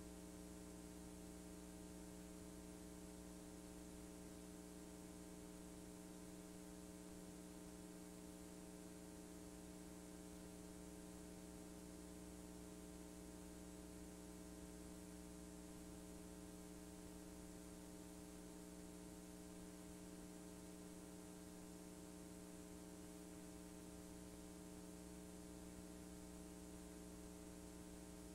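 Near silence: a faint, steady mains hum with several overtones under a light hiss, the background noise of a blank stretch of a VHS tape transfer.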